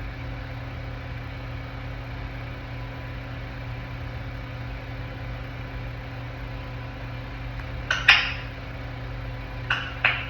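A steady low hum fills the background. About eight seconds in comes one short noisy sound from a young African grey parrot, then two briefer ones near the end.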